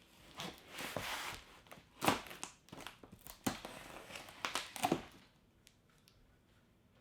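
Cardboard shipping box being opened by hand: tape tearing and cardboard rustling, with a few sharp knocks, stopping about five seconds in.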